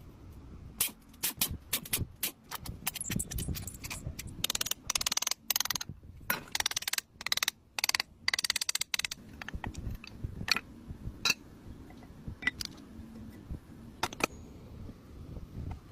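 Hand-work on metal motorcycle parts: tools and parts clinking and knocking, with a run of short scraping or rasping bursts about a third of the way in.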